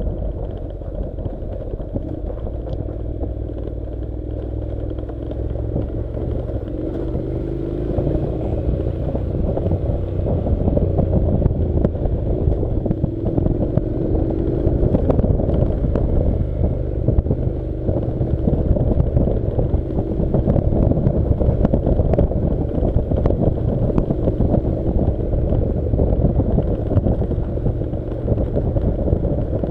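Honda NC700's parallel-twin engine running as the motorcycle rides over a gravel track, with rattling and small clicks from the stony surface and wind on the microphone. It grows a little louder after the first few seconds.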